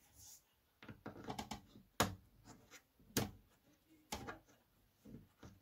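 Small clicks and taps of fingers fitting and turning a small screw into the record player's metal panel: a quick flurry of little clicks, then three sharper clicks about a second apart and a few softer ones near the end.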